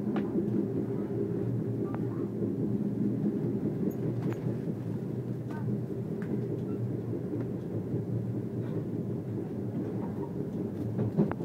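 Passenger train running at speed, heard from inside the coach: a steady low rumble of wheels on the track, with a few faint clicks.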